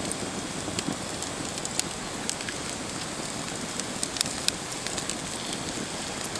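Rain falling steadily, an even hiss with many separate drops ticking sharply against nearby surfaces.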